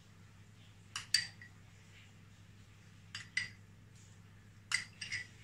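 A metal spoon clinking against the bowls as yogurt is spooned out, three quick double clinks about two seconds apart.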